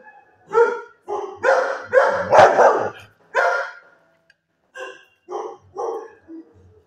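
Dog barking repeatedly, about ten short barks: a loud run in the first half, then fainter barks in the second half.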